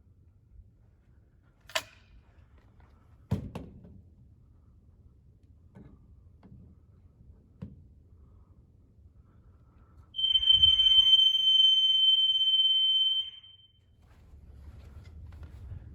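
FCI fire alarm horn sounding one steady high-pitched tone for about three seconds, then cutting off. A few sharp knocks come before it.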